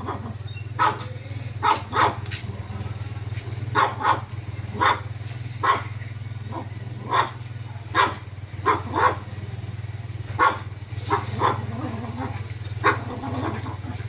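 A dog barking repeatedly, short barks singly or in pairs every second or so, over a steady low hum.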